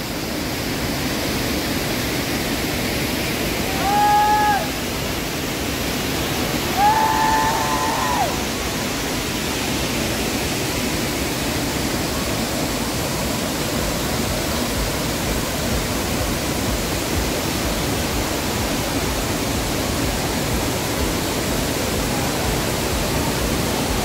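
Waterfall rushing: a steady, even roar of falling water. Two short, high held calls cut through it about four and seven seconds in.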